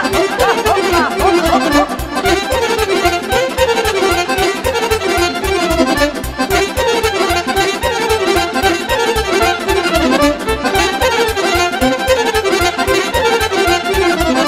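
Instrumental Romanian party folk music (muzică de petrecere), with violin and accordion playing fast running melodic lines over a steady quick beat.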